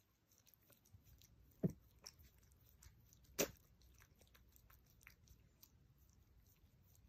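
Chihuahua licking a person's face: faint, quick wet licking and smacking sounds, with two louder smacks, one under two seconds in and one near the middle.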